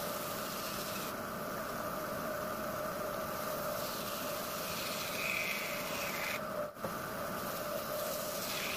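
Large bandsaw running steadily with a constant hum, its blade sawing through a log.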